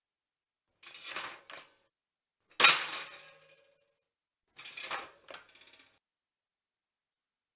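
Pop-up toaster's metal lever and carriage clattering: a short double click about a second in, then a loud metallic clack with a brief ringing tone, the bread carriage snapping up. Two more quieter clicking clatters follow about two seconds later.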